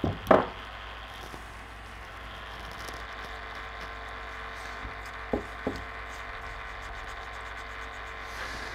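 A small brush worked against a metal part in a plastic tub of cleaning bath liquid. A sharp knock comes just after the start, then two light taps about halfway through, over a steady low hiss.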